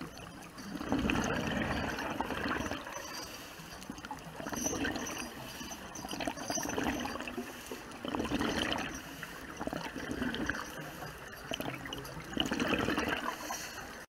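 Water bubbling and gurgling, swelling and fading every couple of seconds.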